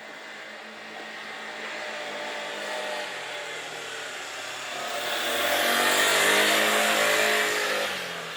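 A car driving past, its engine and tyre noise building over several seconds to a peak about six seconds in, then falling away quickly near the end.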